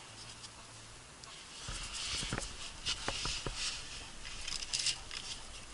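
Light clicks, taps and short scraping rustles of a mechanic's hands handling tools and brake parts, scattered through the second half.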